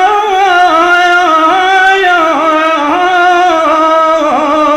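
A male radood's unaccompanied voice holding one long melismatic note on "la" in a Shia elegy chant, wavering through small ornaments and fading out near the end.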